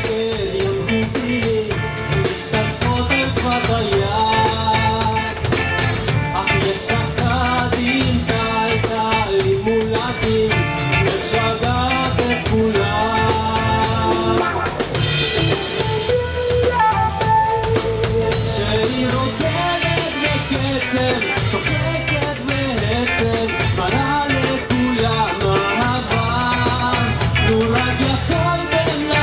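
Live band playing an upbeat song with drum kit, guitar and singing, keeping a steady beat throughout.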